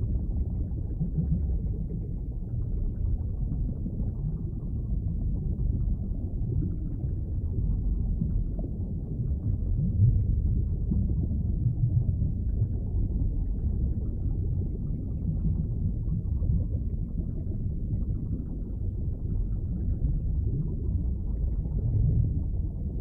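Underwater ambience: a steady, muffled low rumble and wash of water, with nothing bright or high above it.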